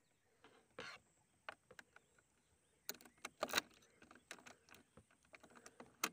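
Scooter ignition key being fitted and worked in the lock: a scatter of small, sharp metal clicks and taps, with the key ring jangling.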